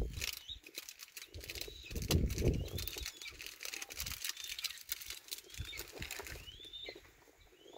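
A lion gives a deep, low grunt about two seconds in, one of a slow series of calls. Birds chirp throughout, over a dry, fine crackle.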